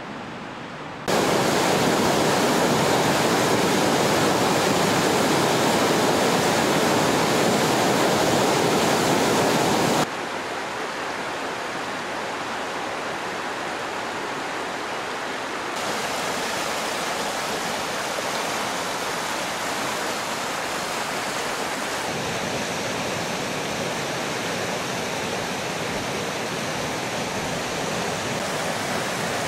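Rushing water of a meltwater stream and waterfall cascading over rocks, a steady rush with no pitch to it. It jumps louder about a second in, drops sharply about ten seconds in, and steps up a little again a few seconds later.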